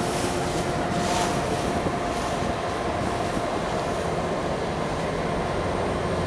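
Passenger ferry under way: a steady mechanical drone from the engines, with a thin steady whine that fades about halfway through, over the rush of water along the hull and wind on the microphone.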